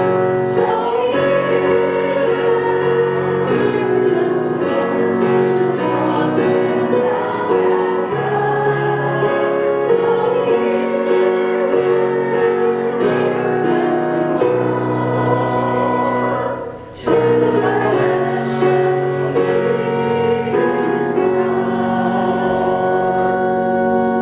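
A woman singing a worship song over instrumental accompaniment, with a short break about two thirds of the way through; the song ends right at the close.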